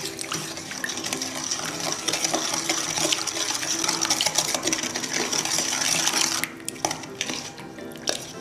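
Wooden spoon stirring a thin soy-sauce marinade in a stainless steel bowl: liquid swishing and sloshing with the spoon scraping the bowl. The stirring stops about six seconds in.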